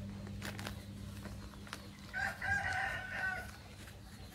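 A rooster crows once, a single call of about a second and a half, over light crinkling of a plastic nursery bag being peeled off a seedling's root ball.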